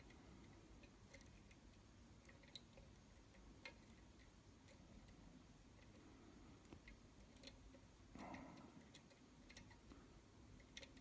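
Near silence with faint, scattered small clicks of a diamond lock pick working the pin stacks of a Falcon challenge lock under very light tension.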